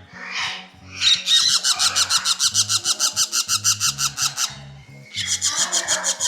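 Young parrots calling in rapid, evenly repeated squawks, about eight a second, in two long runs with a short break near the middle.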